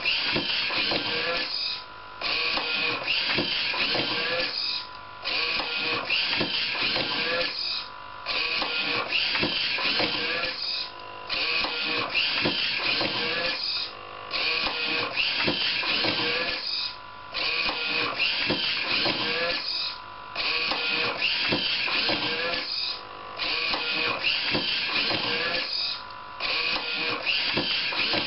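Motors and page-turning mechanism of a home-built automatic book scanner running in a steady cycle. The sound is continuous, broken by a short pause about every three seconds, once per page turn.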